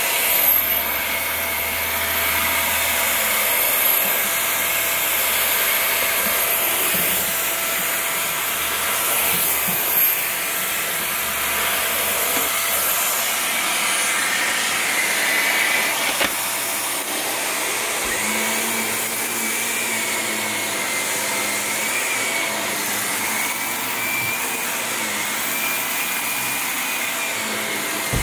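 Bagless upright vacuum cleaner running on carpet: a steady motor whine over suction noise, with a few brief knocks.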